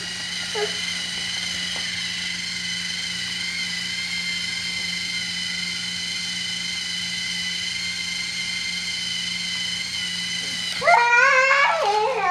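Small electric motor of a battery-powered Thomas & Friends TrackMaster toy train running, a steady high whine over a low hum. Near the end a high voice breaks in with sliding calls.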